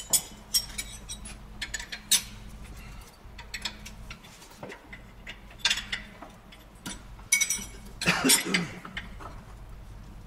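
Steel hand tools clinking and clicking against metal fittings in irregular sharp knocks, with a louder rattling clatter about eight seconds in, as fasteners on a truck trailer's spring brake chamber are tightened. A low steady hum underneath stops about three seconds in.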